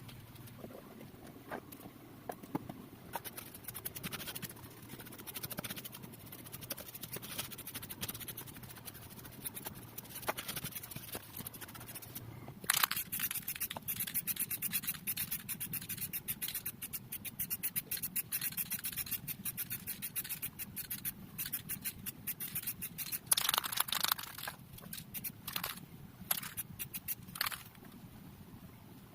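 Rapid, repeated scraping and scratching strokes on a hard surface. They come sparsely at first, then thicker and louder from about halfway through.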